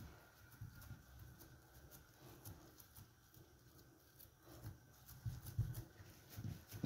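Faint rubbing, soft pats and small clicks of hands pressing and rolling a log of semolina dough around its date-paste filling on a cloth-covered table, a little louder toward the end.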